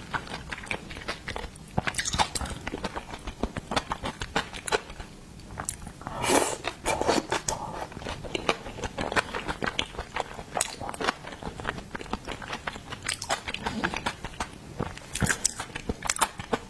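Close-up chewing and biting of seafood: a dense run of wet mouth clicks and small crunches, with a louder, longer crunch about six seconds in.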